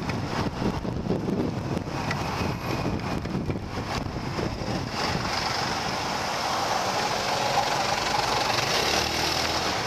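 Motorbike riding through traffic: engine running under a rushing road and wind noise that is choppy at first, then steadier as it slows into the queue, with a low steady hum near the end.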